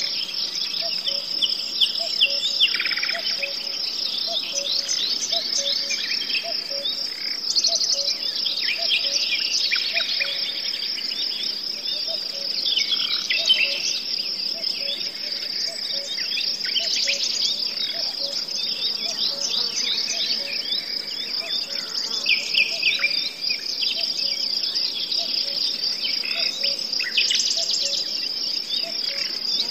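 Insects trilling in a steady high-pitched chorus, with many short bird chirps and calls over it and a faint regular ticking lower down.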